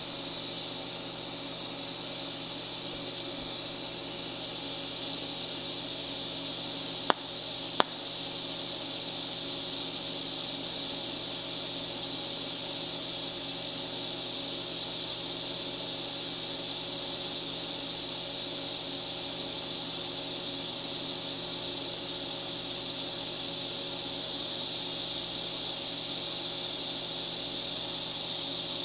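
Low-amperage TIG arc welding stainless steel, a steady high-pitched hiss of the arc and argon shielding gas, at about 35 amps, which is too little current for the joint. Two sharp clicks come about seven and eight seconds in, and the hiss grows a little louder near the end.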